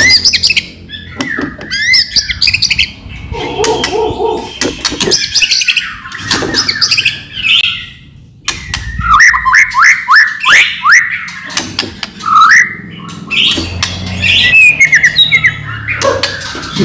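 White-rumped shama (murai batu) singing hard: a loud, fast, varied run of whistled phrases and rapid sweeping notes mixed with harsh clicking rattles. There is a brief break about halfway.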